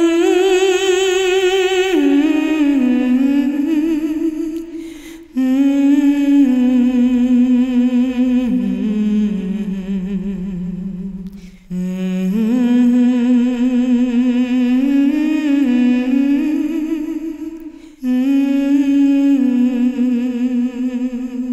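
Music: a slow melody hummed without accompaniment, in long held notes with vibrato, in phrases broken by short pauses about five, twelve and eighteen seconds in.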